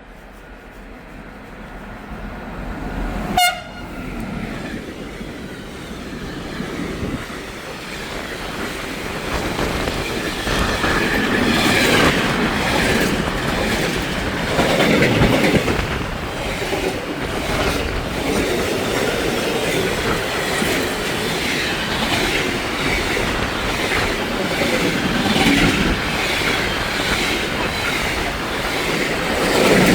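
A passing train: a very short horn toot about three seconds in, then the train's running noise builds up over several seconds and carries on loud as it goes by, with wheel and rail clatter.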